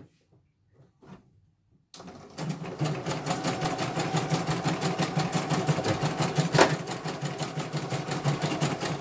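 A CNY portable computerized embroidery machine, its casing open, starts stitching about two seconds in. It runs on with rapid, even needle strokes, with one sharper click past the middle.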